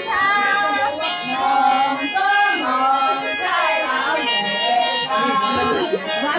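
Several women singing a traditional toast song together in long, high, gliding phrases while offering wine.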